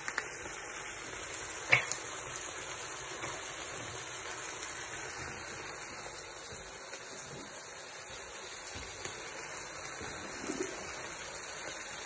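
Beef frying in a pan: a steady sizzling hiss, with the meat's own juices cooked off so that it has begun to brown. A sharp tap sounds a little under two seconds in.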